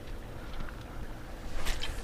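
Light wind noise on the microphone over quiet pond-side ambience, with one short sharp click about one and a half seconds in.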